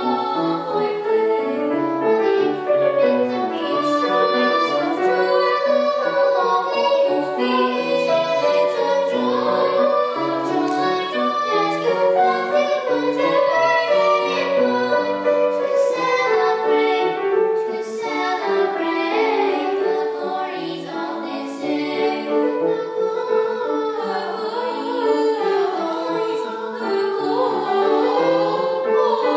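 A song sung by girls' voices over musical accompaniment, continuing without a break.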